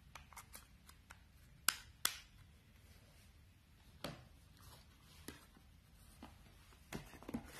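A few sharp plastic clicks and taps as a battery is pushed into an action camera's battery slot and the camera is handled and set down. The two loudest clicks come close together about a second and a half in, with fainter taps spread through the rest.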